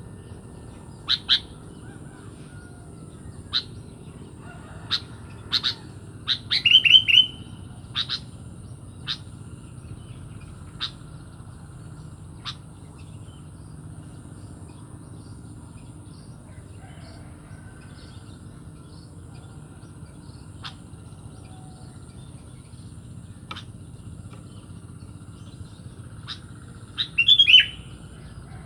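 Sooty-headed bulbul (kutilang) giving short, sharp call notes every second or two, with a quick run of descending notes about seven seconds in and again near the end.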